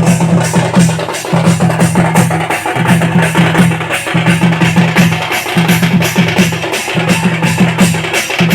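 Loud music with a fast, steady drumbeat and a repeating low bass figure.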